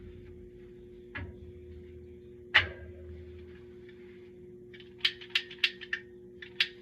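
Sharp clicks over a faint steady hum: one loud click about two and a half seconds in, then a quick run of about six clicks near the end, followed by two more.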